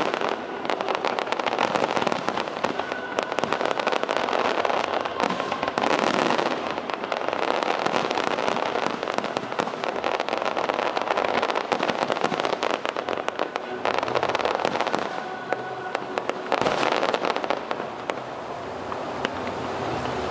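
Fireworks display: a dense, continuous crackle of many overlapping shell bursts and pops, easing slightly near the end.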